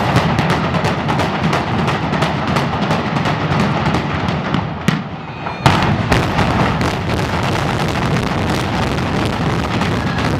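Explosive demolition charges firing in quick succession during a building implosion: a rapid crackle of sharp reports over a low rumble. It dips briefly about five seconds in, then a second volley of cracks starts.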